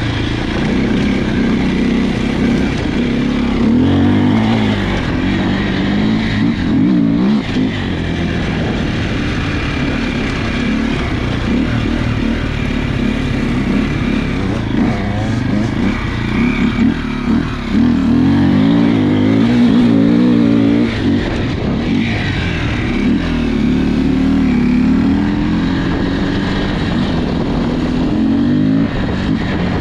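Enduro dirt bike engine running under way, its pitch rising and falling again and again as the throttle is opened and closed.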